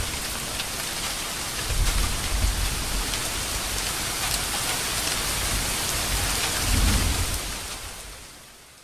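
Steady heavy rain with deep rolls of thunder, one about two seconds in and another near seven seconds, then the whole fades out near the end.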